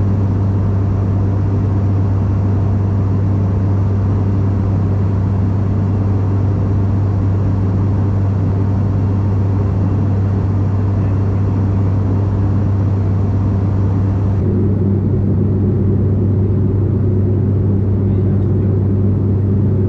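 Cabin drone of an ATR 42-600 turboprop airliner in cruise: its propellers and engines give a steady, loud low hum over a rushing noise. The higher part of the hiss drops away about 14 seconds in.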